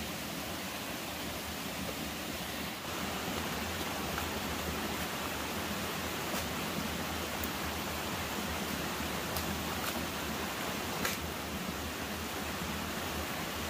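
Steady rush of a forest stream, with a few light knocks of a machete striking a felled trunk in the second half.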